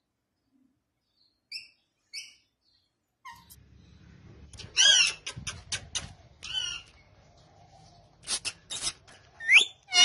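Indian ringneck parakeet calling: two short soft calls, then from about three seconds in a string of loud, sharp screeching calls and chatter, several of them rising in pitch near the end.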